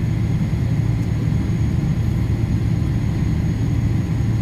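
Steady low rumble of engine and cabin noise inside an Emirates Boeing airliner rolling slowly on the ground, with a faint steady high whine over it.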